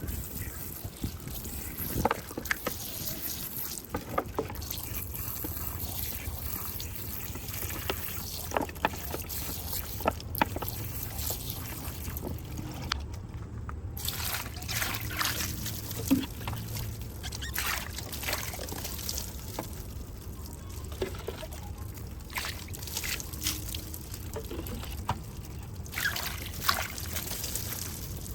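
Water trickling and dribbling, with scattered small clicks and taps over a steady low hum.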